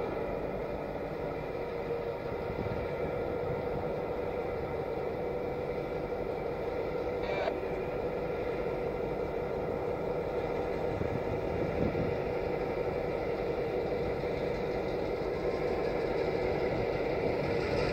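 EMD SD9 diesel locomotives running steadily, their 567 V16 engines working as the units pull a cut of cars slowly through the yard. The drone slowly gets louder as they draw nearer.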